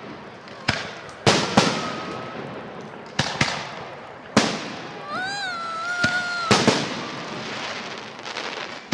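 Fireworks salute: shells bursting overhead in a string of sharp bangs, about eight in all, each trailing off in echo. Near the middle, a high voice calls out for about a second and a half.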